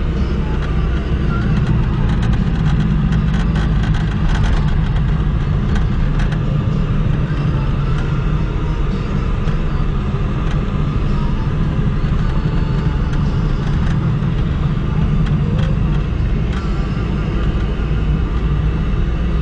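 Car engine and tyre noise heard from inside the cabin while driving, a steady low drone, with scattered light clicks and rattles over it.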